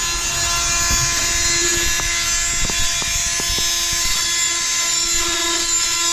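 Small handheld power sander running steadily against fiberglass, a constant whine over a hum.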